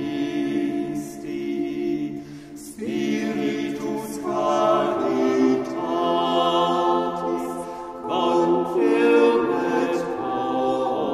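Choir singing a slow Taizé chant in long held notes, phrase after phrase, with a short break about two and a half seconds in before the next phrase.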